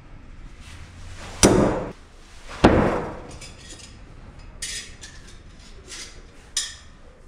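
Two throwing knives striking a wooden target about a second apart, each a sharp hit with a short ringing decay. Later come two fainter, high metallic clinks of knives being handled.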